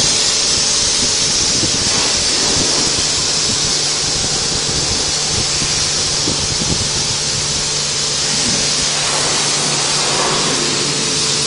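High-pressure washer lance spraying a steady, hissing jet of water into a car's interior, with a steady low hum underneath.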